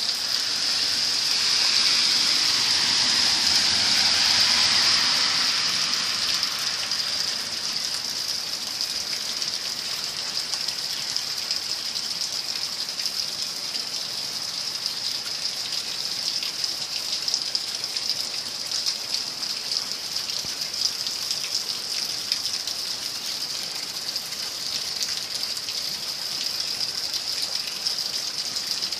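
Steady rushing hiss of floodwater and rain, with a louder whooshing swell in the first few seconds that falls in pitch and fades by about six seconds in.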